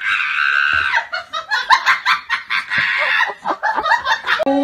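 A person laughing hard: rapid bursts of laughter broken by two long, high-pitched shrieks. Near the end the sound cuts abruptly to a steady held note.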